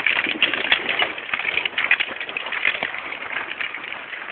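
Dense, irregular crackling and rustling of dry leaves, twigs and brush as a Percheron draught horse skids a log through forest undergrowth.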